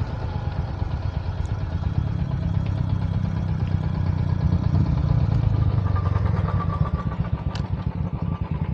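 Motorcycle engine running steadily, a continuous low pulsing rumble.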